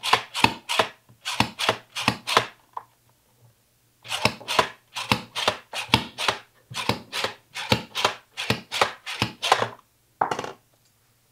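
Whole white button mushrooms pushed one after another through an upright plunger-style slicer, its blades cutting them with a rapid run of sharp crunching strokes, about two to three a second. The strokes come in two runs with a short pause between them, and one last stroke comes near the end.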